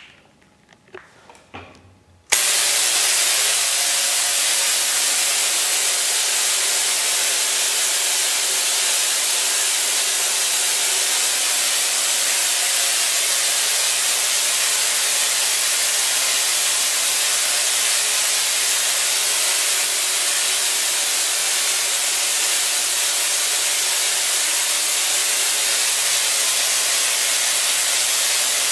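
A few faint clicks, then about two seconds in a home-built Tesla coil, fed by two 7500 V, 30 mA neon sign transformers, switches on abruptly. Its streamer discharges off the toroid make a loud, steady hissing crackle over a low electrical hum.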